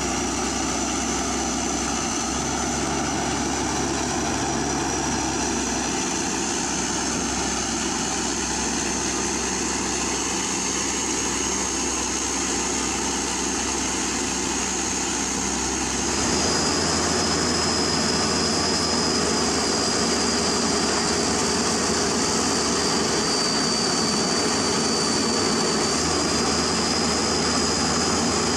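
Komatsu PC200 hydraulic excavator's diesel engine running steadily while it digs, with a steady high whine on top. About 16 seconds in the sound shifts and becomes slightly louder.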